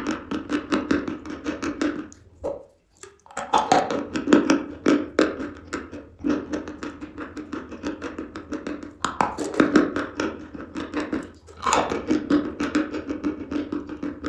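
Chalk being bitten and chewed close to the microphone, crunching in quick runs of crackles with a couple of short pauses.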